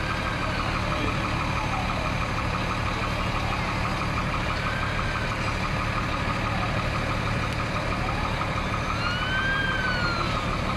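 Emergency vehicle siren wailing, rising and falling slowly about every four to five seconds, over a steady low engine drone.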